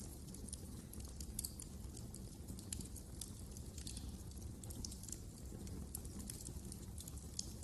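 Wood fire crackling: frequent, irregular short pops and snaps over a steady low rumble of burning.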